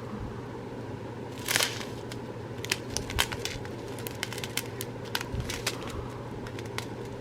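Small plastic packets of diamond-painting drills being handled, crinkling with many scattered small clicks and a louder rustle about a second and a half in.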